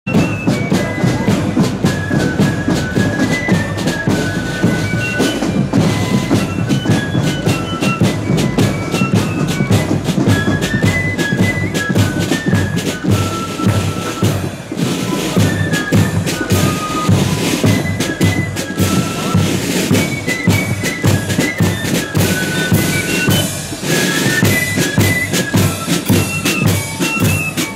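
Marching flute band playing a tune: a high flute melody over snare drums and a bass drum.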